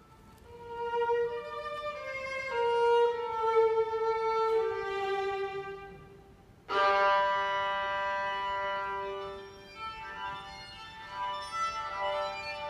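Solo violin playing a slow melody of held notes that step downward. About two-thirds of the way through, a louder, fuller sustained chord comes in suddenly and holds, then softens.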